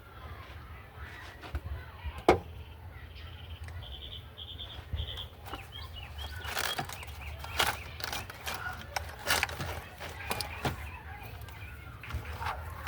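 Scattered clicks and knocks of car parts being handled and fitted, the loudest a sharp knock about two seconds in. Birds chirp in the background, with a quick run of short chirps near the middle, over a steady low hum.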